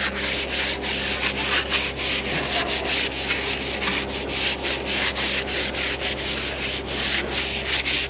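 Stiff plastic-bristled wheel brush scrubbing a soapy tractor wheel rim and tyre in quick back-and-forth strokes, several a second, working at ingrained muck.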